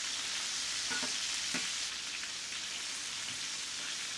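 Skin-on chicken thighs with shallots, garlic and thyme sizzling steadily in oil in an enamelled cast-iron braiser over high heat. Metal tongs move the food around the pan, giving a couple of faint clicks.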